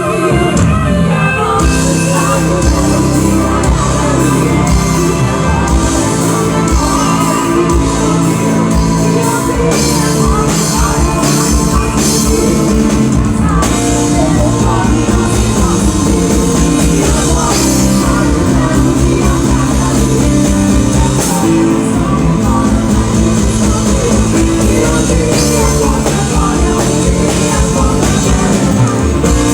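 Loud rock-style band music with a steady beat.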